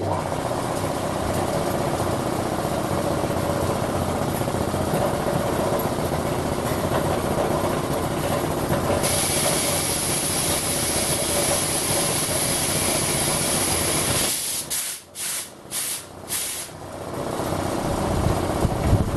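Belt-driven single-cylinder air compressor, driven by an old McColl electric motor, starts up and runs steadily with no knocks or rattles. A loud hiss of air starts abruptly about nine seconds in and stops about five seconds later. The sound then drops out in several short gaps before it runs steadily again.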